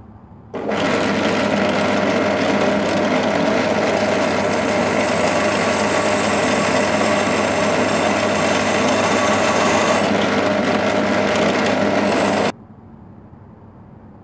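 Benchtop drill press running with a 5 mm twist bit drilling through a flat metal bar: a steady motor hum mixed with metal-cutting noise. It starts about half a second in and cuts off suddenly near the end.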